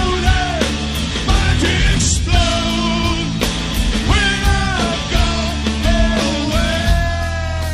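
Live rock band playing loud, with a man singing into a microphone over the band. His voice slides between notes and holds a long, slowly falling note near the end.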